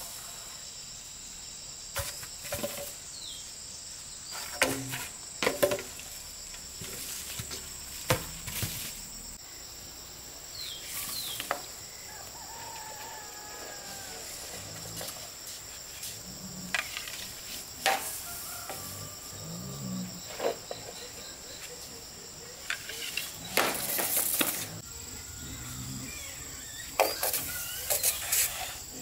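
Steady high-pitched insect drone, with sharp knocks and rustles every second or few and scattered bird calls, among them chicken-like clucks.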